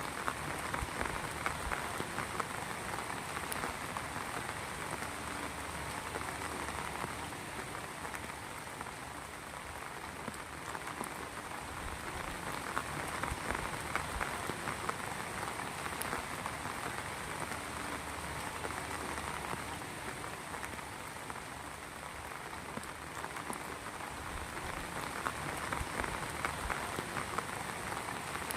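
Rain falling steadily, a dense patter of drops striking a surface, swelling slightly in intensity a few times.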